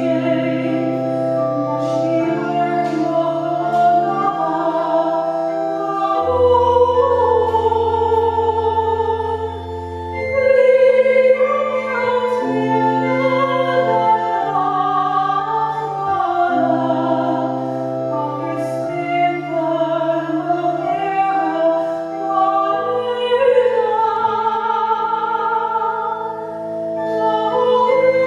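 A woman singing solo in a classical, operatic style with strong vibrato, over an accompaniment of held chords and a slowly changing bass line.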